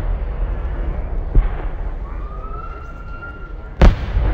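Aerial fireworks going off: a dull thud about a second and a half in, then a thin whistle rising slowly for under two seconds, cut off by a loud, sharp bang near the end.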